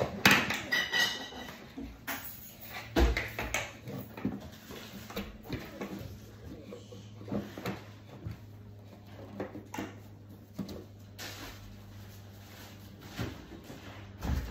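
Scattered knocks and clunks of things being handled, with one heavier thud about three seconds in, over a steady low hum.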